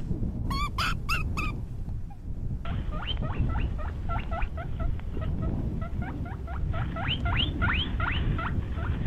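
Rabbit squeaking: four short high squeaks near the start, then, from a second recording, a rapid run of many short squeaks that each slide upward in pitch, over a steady low rumbling noise.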